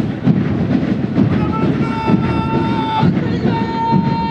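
Military marching band playing for a march-past: a dense, pulsing beat of drums, with two long held notes from a wind instrument starting about a second and a half in.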